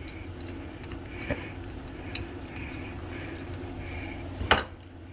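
Kitchen knife cutting through a chub mackerel along its backbone on a cutting board, with soft scraping strokes. A small click comes about a second in, and a sharp knock near the end is the loudest sound, over a steady low hum.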